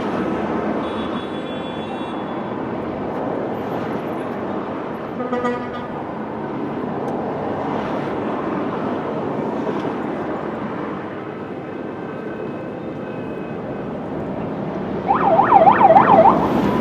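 Steady rumble of motorcade vehicles and city traffic, with a short beep about five seconds in. Near the end a police siren starts yelping loudly in fast rising-and-falling sweeps.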